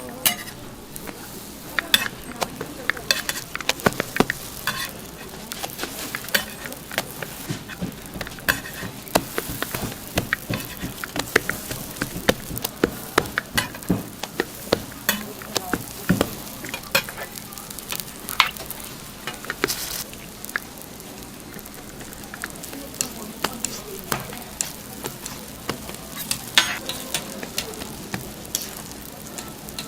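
Hotteok frying in oil on a flat griddle: a steady sizzle with frequent sharp clicks and taps scattered throughout.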